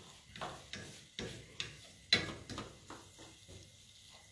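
Wooden spoon stirring a thick tomato and onion sauce in a frying pan, knocking and scraping against the pan in irregular strokes about twice a second, over a low sizzle. The loudest knock comes about two seconds in.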